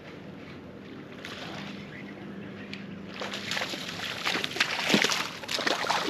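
A hooked bass splashing and thrashing at the water's surface beside the boat as it is reeled in. Irregular bursts begin about three seconds in and are loudest near the end.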